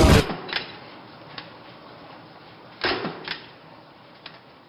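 A man's voice cuts off, then a few scattered sharp clicks and knocks sound over a faint hiss that slowly fades; two of them come close together about three seconds in.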